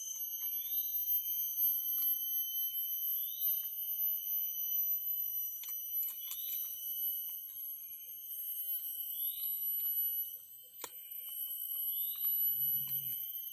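Forest insects buzzing in steady high-pitched tones, with a short rising call repeating about every three seconds. A few sharp clicks stand out, the loudest about 11 seconds in, and a brief low sound comes near the end.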